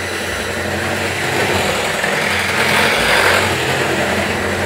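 Electric hand mixer running steadily, its beaters whisking thin pancake batter in a bowl. The hiss of the beaters in the batter swells for about a second in the middle.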